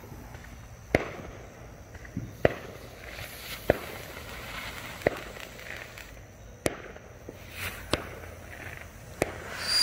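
Consumer ground firework going off, spraying sparks and smoke with a sharp pop about every second and a half, seven pops in all, over a low crackle.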